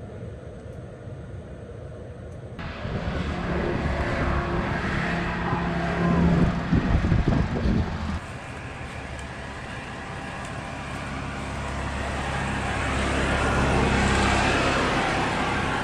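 A vehicle driving along, a steady motor and road-noise rumble. The sound changes abruptly about two and a half and eight seconds in, as between separate clips.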